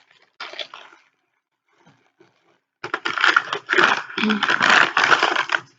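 Packaging being handled and torn open during unpacking: a brief rustle, then about three seconds of dense crinkling and clicking.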